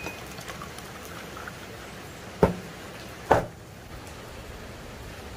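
Steady rain falling, with two sharp knocks about a second apart just past the middle.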